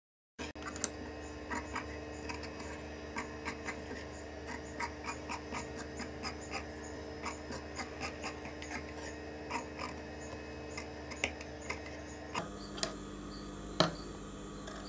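Large tailor's scissors snipping through a shirt collar's fabric and interfacing, a short sharp click about twice a second over a steady hum. The hum changes about twelve seconds in, and one louder click comes near the end.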